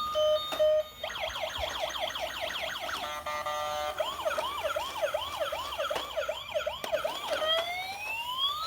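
Battery-powered toy police car's electronic siren cycling through its patterns. A fast yelp of about five sweeps a second starts about a second in, then a brief rapid warble, then a slower whoop of about three sweeps a second, and near the end a long rising wail.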